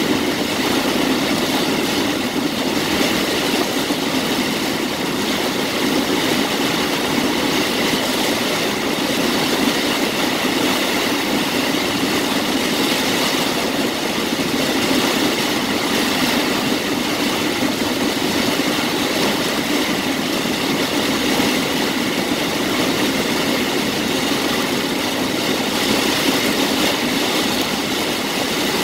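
Heavy rain on a moving car, heard from inside the cabin: a steady, loud wash of rain on the roof and windshield and tyres on the wet road.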